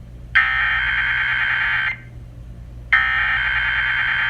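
Emergency Alert System header tones: two bursts of the harsh digital data signal, each about one and a half seconds long and about a second apart. They mark the start of an EAS test broadcast.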